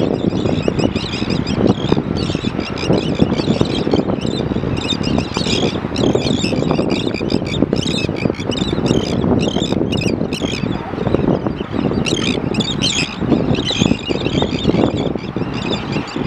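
A steady low rumble, with many small birds chirping throughout, thickest in the middle of the stretch.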